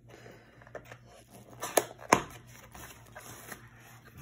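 Small cardboard box being opened by hand: light rustling and scraping of the flaps, with two sharp clicks close together about two seconds in.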